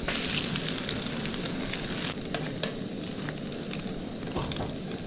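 Eggs sizzling and crackling in hot oil in a frying pan as they are turned with a spoon, the sizzle loudest in the first two seconds.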